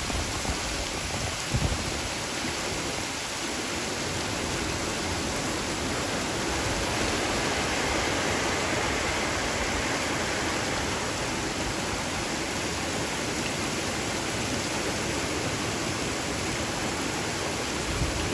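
Heavy rain falling steadily: an even hiss.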